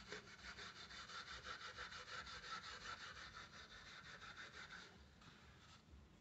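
Faint kitchen sponge scrubbing an aluminium pan lid coated in a soapy polishing paste: quick, even back-and-forth rubbing strokes, about five a second, stopping about five seconds in.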